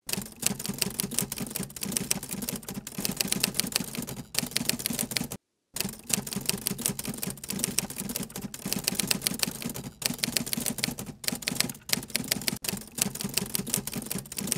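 Typewriter sound effect: a rapid, dense run of keystroke clicks, breaking off briefly about five seconds in and then carrying on.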